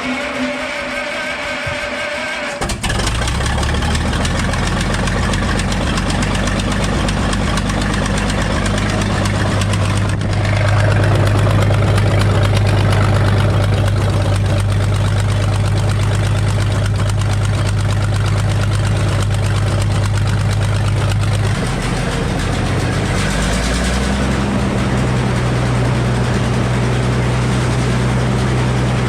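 Sawmill power unit, a Minneapolis Moline engine, cranked by its starter with a steady whine for about two and a half seconds until it catches, then running steadily. About ten seconds in it picks up speed and runs louder, then drops back and settles again near the end.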